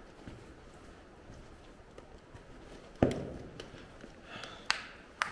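Footsteps on the rocky floor of a cramped mine tunnel: a few separate sharp steps with a short echo, the loudest about three seconds in and two more near the end.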